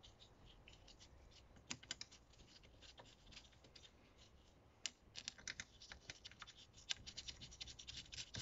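Faint small metal clicks and scrapes of a screwdriver starting the fuel filter housing cover screws: a few scattered clicks at first, then a quick irregular run of clicks from about halfway through.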